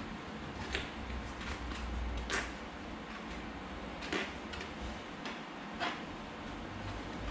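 A rubber inner tube and tyre being worked by hand into a bicycle wheel's rim: a handful of short clicks and scrapes a second or so apart, the strongest about two and a half seconds in, over a steady low hum.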